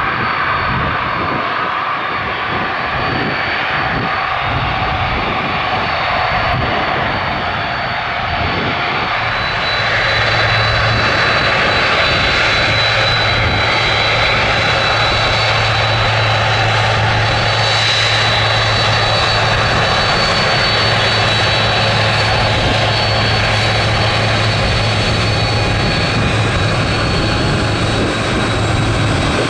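Boeing 767-300ER's jet engines running loud and steady, with high-pitched fan whine and a low hum; the noise grows louder and brighter about ten seconds in.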